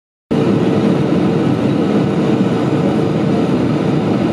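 Cabin noise inside a Boeing 737-800 in flight: a steady drone from its CFM56-7B turbofan engines and rushing air, with a constant hum running through it. It starts suddenly just after the beginning.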